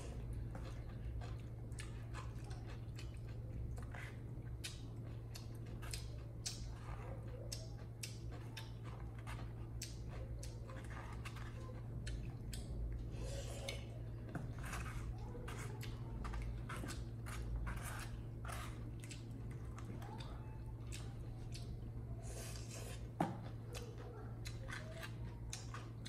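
Close-up eating sounds from a person and a baby monkey eating noodles: chewing and mouth smacks with a few slurps, and chopsticks clicking against a bowl, with one sharp tap near the end. A steady low hum runs underneath.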